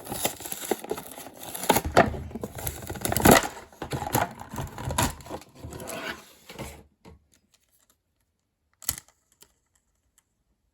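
Cardboard and plastic toy packaging being wrestled open by hand: a busy run of rustling, tearing and sharp knocks that stops about two-thirds of the way through, followed by a single sharp click near the end.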